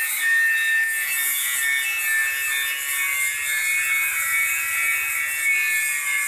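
Handheld angle grinder running with its disc against the edge of a steel sickle, grinding the blade down to sharpen a blunt, thick edge. A steady whine whose pitch wavers slightly as the disc bites.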